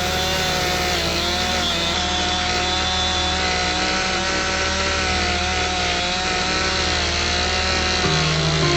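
Chainsaw running steadily under load while cutting through a log, its engine pitch wavering slightly as the chain bites.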